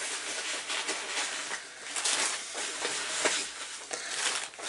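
Packing peanuts rustling and clattering as handfuls are scooped out of a box, in irregular rustles that come and go, louder about two seconds in and again near the end.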